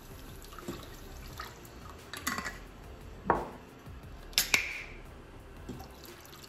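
Tomato passata poured from a glass bottle into a stainless steel pot, glugging out in uneven spurts, with a few sharp clinks and knocks, one of them ringing briefly.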